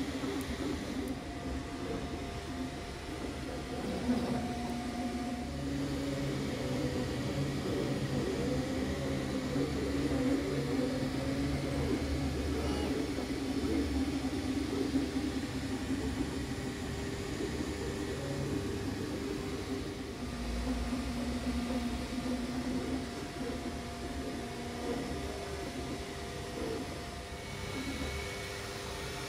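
3D printer's stepper motors whining as the print head moves, printing an orthotic insole: tones that jump and glide in pitch with each move, over a steady hum.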